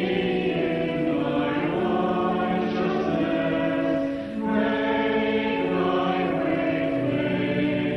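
Church choir singing a slow piece in held chords, with a brief break between phrases about four seconds in.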